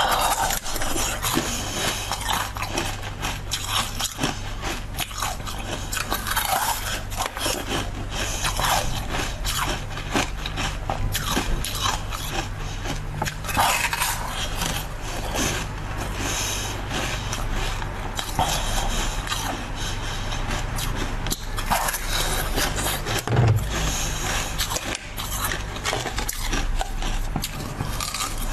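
Close-up biting, crunching and chewing of frost-covered, pepper-shaped food, a continual run of crisp irregular crunches, over a steady low hum.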